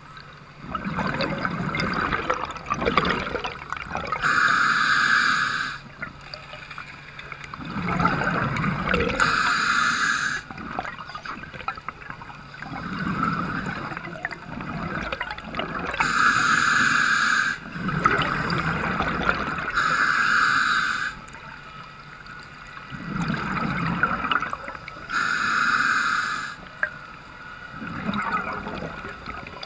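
Scuba diver breathing through a regulator underwater: hissing inhalations through the demand valve alternate with gurgling rushes of exhaled bubbles, about five breaths in a slow, regular cycle.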